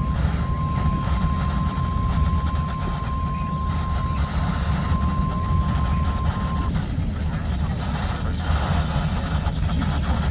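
NOAA Weather Radio warning alarm tone, a steady single high tone near 1050 Hz, sounding over a loud low rumble; the tone cuts off about two thirds of the way through.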